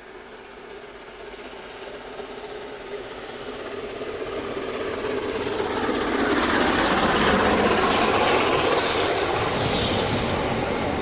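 LNER Peppercorn A1 steam locomotive 60163 Tornado and its train approaching and passing, growing steadily louder over about six seconds, then the carriages running by close with wheels clattering on the rail joints.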